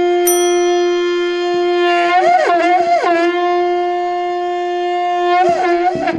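Conch shell (shankha) blown in one long, steady note. The pitch breaks and wavers around two to three seconds in and again near the end, then the note cuts off.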